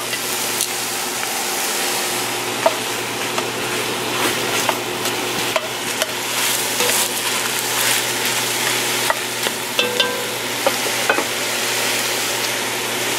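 Pork chunks frying in oil with onion and garlic in an enamelled Dutch oven: a steady sizzle, with scattered clicks and scrapes as the meat is stirred.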